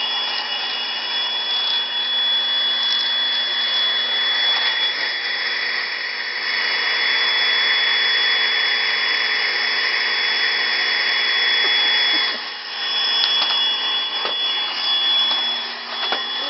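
Vacuum cleaner running steadily with a constant high whine as it grooms a cat's fur; the airflow sound shifts as the nozzle moves, dipping briefly about twelve seconds in.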